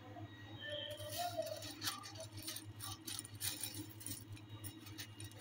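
Dry broken spaghetti sticks being stirred by hand in a ceramic bowl: a quick run of light clicks and rattles as the hard pasta knocks together and against the bowl, starting about a second in, over a low steady hum.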